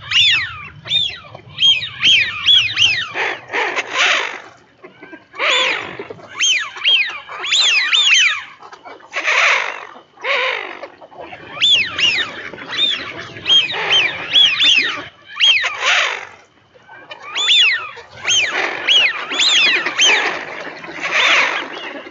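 A flock of Eurasian wigeon, the drakes calling again and again with high whistled 'whee-oo' notes that rise and fall, in clusters with short gaps between them. Bursts of harsher, noisier sound mix in among the whistles.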